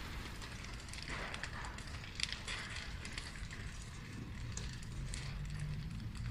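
A large building fire burning at a distance: scattered sharp pops and crackles over a steady low rumble, with one louder snap about two seconds in.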